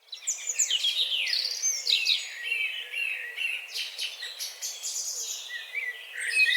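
Several birds chirping and singing at once: a dense chorus of quick, overlapping chirps and trills.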